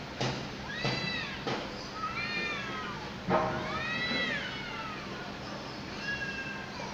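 Domestic cats yowling at each other in a territorial fight: a string of drawn-out wails that rise and fall in pitch, the longest and loudest about three and a half seconds in. A few short sharp noises come in among them.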